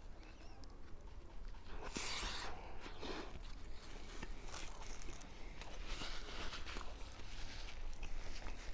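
Close-up eating sounds from a chilaquiles torta being chewed, with a few short crunching or rustling noises about two, three and six seconds in.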